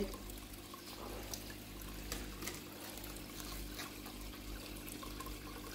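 Water trickling steadily in a small indoor koi pond, over a low steady hum from the pond's filter equipment.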